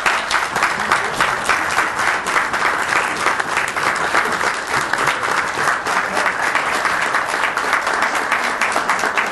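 Audience applauding steadily in a meeting room, many people clapping at once, greeting a newly sworn-in city council member.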